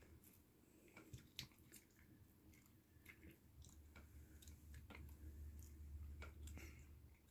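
Faint chewing and scattered small clicks of a red fox eating food from a plate. A low hum swells in the second half.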